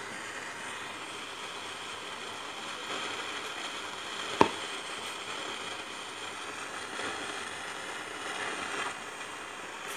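Old National Panasonic radio cassette recorder hissing and crackling with static through its speaker, with one sharp click about four and a half seconds in.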